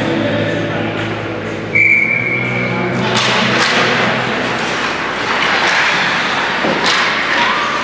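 Ice-rink music ends as a single steady high tone, a whistle or horn signal, sounds for about a second. It is followed by a crowd of voices in the arena, with sharp knocks and thuds from the play.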